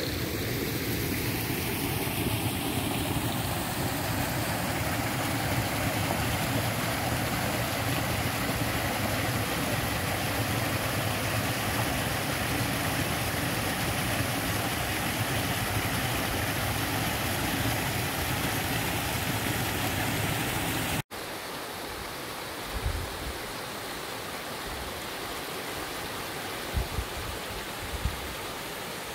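Shallow river water running over rocks and small cascades: a steady rushing. About two-thirds of the way through it cuts to a slightly softer rushing, with a few faint low thumps near the end.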